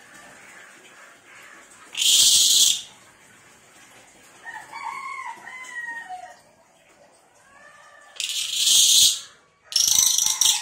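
Cililin songbird singing in loud, harsh, shrill bursts, three of them: about two seconds in, about eight seconds in and near the end. Fainter arched whistled notes come between the bursts.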